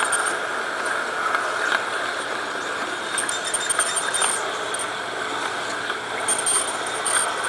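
LGB G-scale model streetcar running along garden-railway track: a steady whir of its small electric motor and gearing, with occasional sharp clicks.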